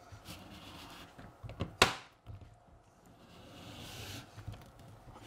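A Tracksetta track-setting gauge being pushed along flexible model railway track, with soft sliding and scraping, a few small clicks and one sharp knock about two seconds in.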